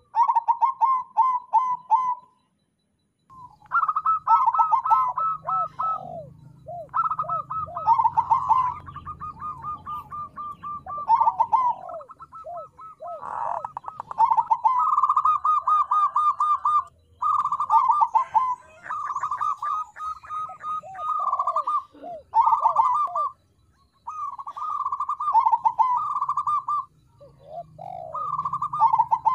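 Crossbred zebra dove (perkutut crossing) singing its cooing song: repeated phrases of rapid staccato coos, each trailing into a few lower, falling notes, with a brief pause about two seconds in.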